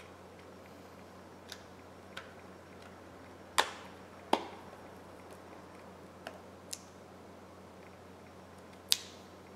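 Scattered sharp clicks and taps of a hard handset being handled: seven in all, three much louder than the rest, about three and a half seconds in, a moment later, and near the end.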